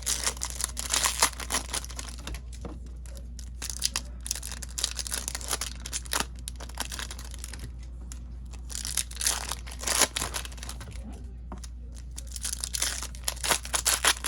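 Crinkling plastic and foil packaging in short rustling bursts, several times over, as baseball card packs are opened and the cards handled.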